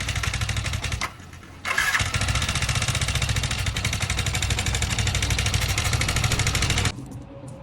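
Yamaha MT 50 motorcycle engine running with a fast, even beat. It cuts out about a second in, is restarted about half a second later, runs steadily and is switched off near the end. The engine has an abnormal noise for which the oil pump is being changed.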